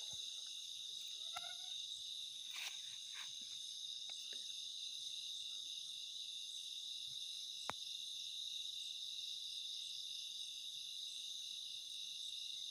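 Night insect chorus: a steady, high-pitched trilling of crickets, with a faint click about two-thirds of the way through.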